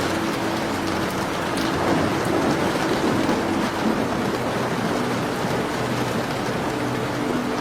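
Steady rain, with a low rumble that swells slightly about two seconds in and a few faint crackles over it.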